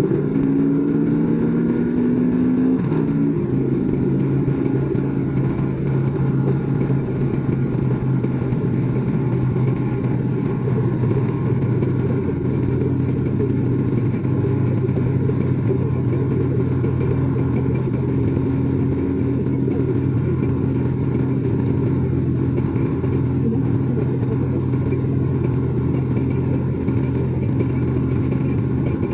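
Harley-Davidson motorcycle's V-twin engine running at highway speed under heavy wind and road noise. The engine note rises for the first few seconds, drops about three seconds in, and then holds steady.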